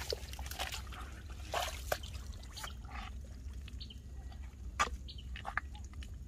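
Hands digging into a muddy field-crab burrow in a drained rice paddy: scattered wet squelches and small splashes of mud and water. There is a denser spell about a second and a half in and a sharp click just before five seconds.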